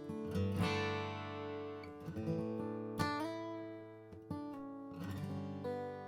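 Martin D-18 Authentic 1937, a mahogany-bodied dreadnought acoustic guitar, being played: chords struck several times and left ringing between strums, with clear single notes over the low strings.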